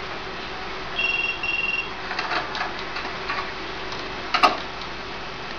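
Two short electronic beeps in quick succession, then a single sharp click about three seconds later.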